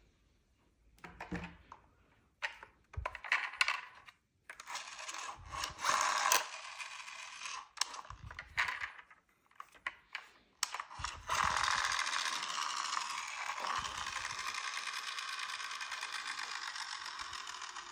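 Small plastic toy car's geared motor running: several short ratcheting whirrs, then about eleven seconds in a long steady gear whir that slowly dies away.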